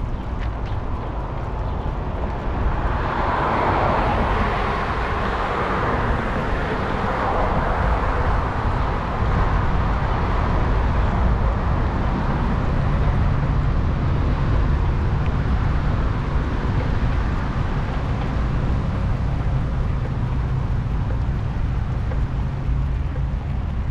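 Wind rumbling on a bike-mounted camera's microphone while cycling, with road traffic noise that swells as a vehicle passes a few seconds in.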